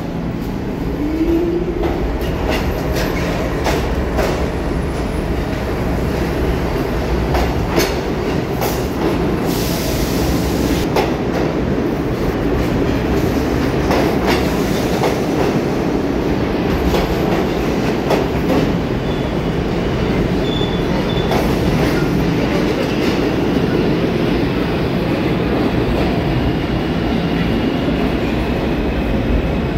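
New York City subway train running on the tracks: a steady rumble with the wheels clicking over rail joints at irregular intervals.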